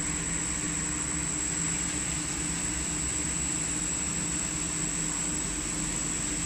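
Wood brush sanding machine running steadily: an even mechanical hum and rush with a thin high whine.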